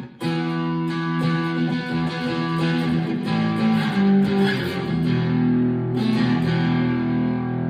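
Fender California Malibu guitar played through a Harley Benton Tube 15 valve amp: chords strummed and left ringing, with a short break and a fresh strum just after the start.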